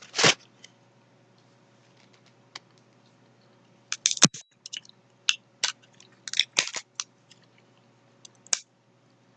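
Someone chewing a mouthful of fried bologna sandwich close to the microphone: scattered short wet mouth smacks and clicks, with one duller knock about four seconds in.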